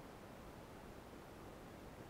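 Near silence: a faint, steady hiss of outdoor background noise with no distinct events.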